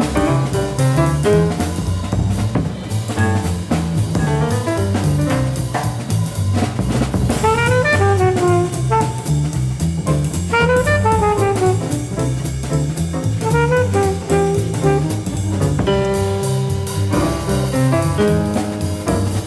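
Jazz quartet of piano, alto saxophone, double bass and drum kit playing a swinging tune live. Quick piano runs sweep up and down through the middle, over a steady bass and cymbal beat.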